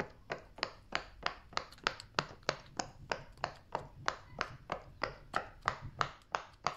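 Pop-it fidget toy's silicone bubbles being pressed one after another: an evenly spaced series of sharp pops, about three a second.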